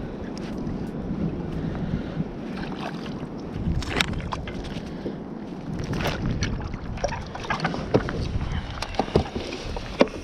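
Sea water slapping and splashing against a kayak hull, with wind buffeting the microphone. Sharp knocks and splashes come at irregular moments, the loudest about four and eight seconds in.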